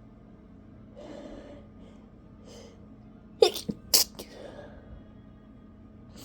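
A person's stifled sneezes: a couple of breathy inhales build up, then two sharp, held-in sneezes about half a second apart, a little past the middle.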